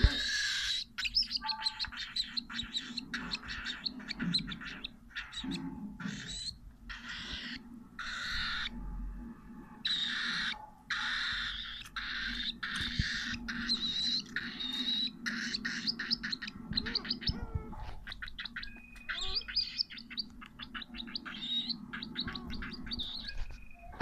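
Cockatiel calling in a long run of short chirps and squawks in quick, irregular succession, with a few brief whistled notes among them.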